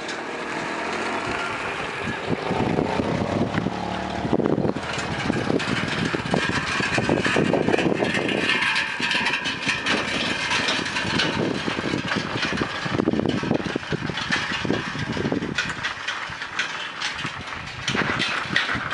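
Motorcycle engine idling close by while a small car drives past.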